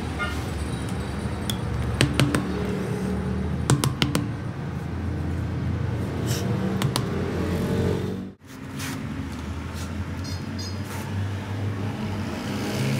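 Steady traffic and workshop rumble, with a few sharp clicks about two seconds and four seconds in as a knife trims rubber from a truck tire's damaged sidewall. The sound cuts out for a moment a little after eight seconds.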